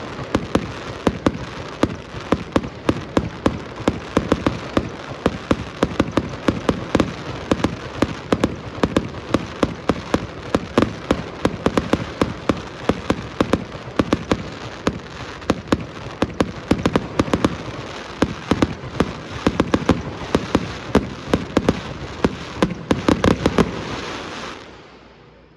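Aerial fireworks going off in a rapid, dense barrage: many sharp bangs and crackles a second over a continuous rumble, dying away near the end.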